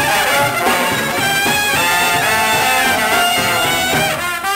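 Brass band playing: trombone, trumpets and saxophone together in long held notes, turning to shorter, choppier notes near the end.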